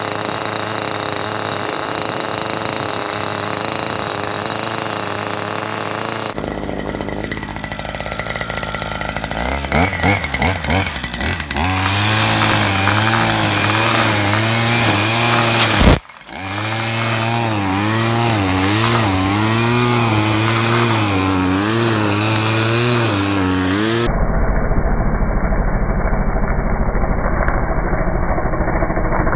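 Petrol brush cutter running: idling steadily at first, then revved in short bursts about ten seconds in and held at high revs, its pitch rising and falling as the line head cuts through tall grass. The sound drops out for an instant about sixteen seconds in.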